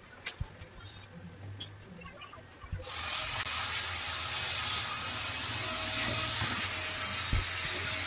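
A few faint sharp clicks, then about three seconds in a loud, steady rushing hiss cuts in abruptly and holds.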